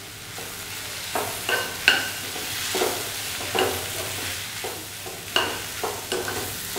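A spatula stirring soya-chunk fry with grated coconut in a metal kadai over a soft sizzle. It gives irregular scrapes and clinks against the pan, some with a short metallic ring, roughly one every half second to second.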